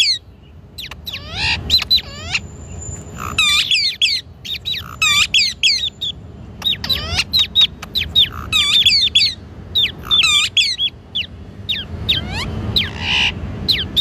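Pet parrots chirping: a quick, busy string of short, sweeping chirps and whistles, some in rapid runs.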